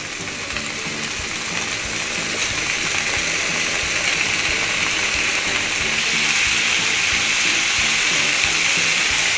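Raw pork belly slices sizzling in a dry nonstick frying pan with no oil added, the sizzle growing steadily louder as the pan heats. Background music plays underneath.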